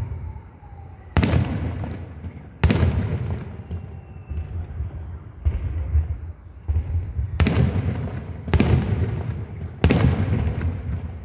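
Fireworks salute shells bursting overhead: five loud booms, about one to three seconds apart, with a softer one in the middle, each trailing off in a long rolling rumble.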